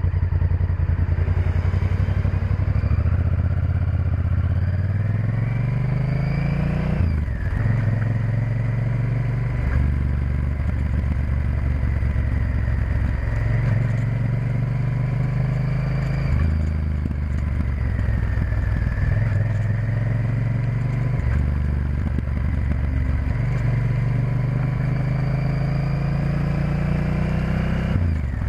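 Honda Varadero XL1000's V-twin engine heard from on board while riding. It rises in pitch several times and drops back sharply, at about 7 s, 10 s, 16 s and again near the end, over steady road and wind noise.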